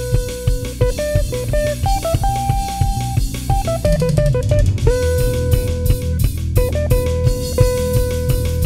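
Instrumental rock music: a drum kit playing a driving beat under a guitar lead that holds long notes between shorter melodic runs.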